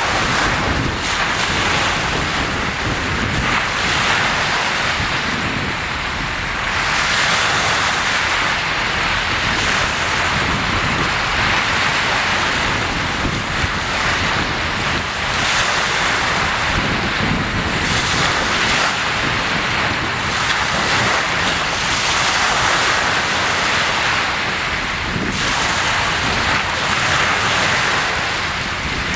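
Sea waves washing in on the shore, a steady rush of surf that swells and ebbs every few seconds.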